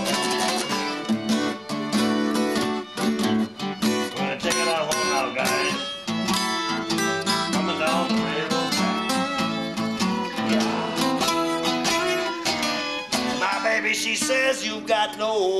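Acoustic guitar played in a country-style jam, a quick run of picked notes and strums that goes on without a break.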